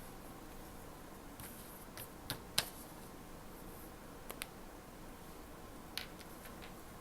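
A few short, sharp clicks and taps of small stationery items being handled and set down, spread out with quiet between them: a pair about two and a half seconds in, the loudest, another pair a little after four seconds, and one near six seconds.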